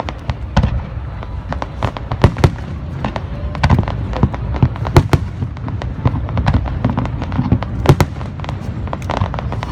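Aerial fireworks going off: a rapid, irregular string of sharp bangs and crackles over a steady low rumble.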